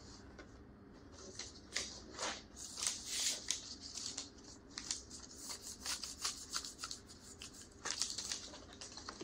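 Paper release liner being peeled off a roll of butyl tape and handled, giving a run of short crackles and rustles that starts about a second and a half in.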